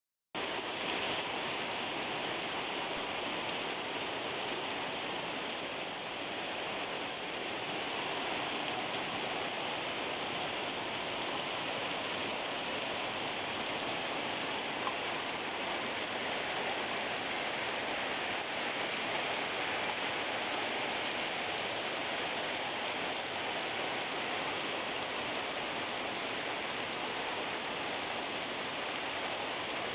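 Heavy monsoon rain pouring steadily onto flooded, muddy ground and foliage, an even unbroken hiss.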